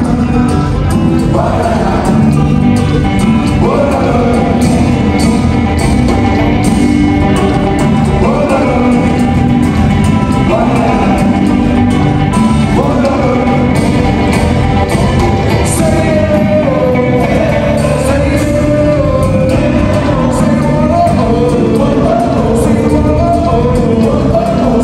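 Live band playing with a lead singer: a sung melody over electric guitar, bass and a steady beat.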